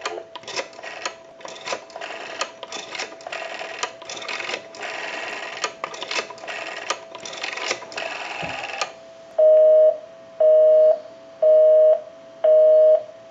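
The rotary dial of a Western Electric wooden wall telephone is turned and let run back again and again, its pulse clicks coming in quick runs for about nine seconds as a number is dialed. Then a busy signal comes through the amplifier: a tone beeping on and off about once a second, because the line dialed is engaged.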